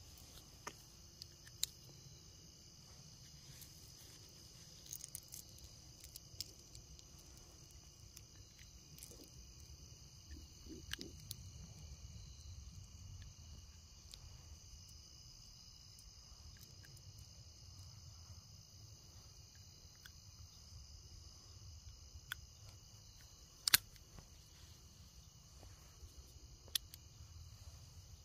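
Steady high-pitched chirring of crickets, over a low rumble, with scattered small metallic clicks from a homemade sheet-metal .22 derringer-revolver being handled and loaded with cartridges; one sharper click comes a few seconds before the end.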